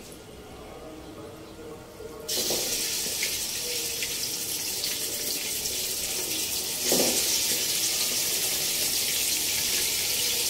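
Pieces of bone-in beef hitting hot oil and fried onions in an aluminium pot, setting off a sudden sizzle about two seconds in. The sizzle steadies with light crackling and swells again around seven seconds in as more meat goes in.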